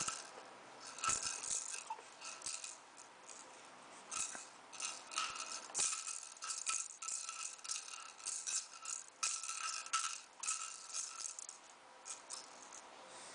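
A handheld toy rattle being shaken in irregular bursts, with short pauses between the shakes.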